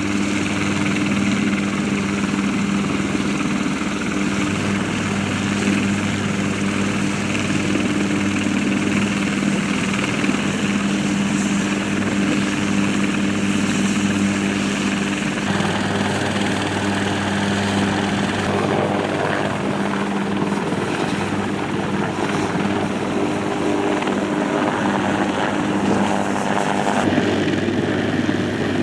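Bell AH-1Z Viper and UH-1Y Venom helicopters running on the ground with their rotors turning: a steady turbine hum and rotor noise. The sound changes abruptly about halfway through and again shortly before the end.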